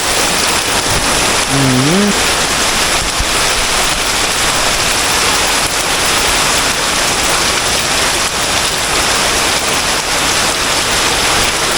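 Heavy hurricane rain pouring steadily, with little wind: a dense, even hiss of rain.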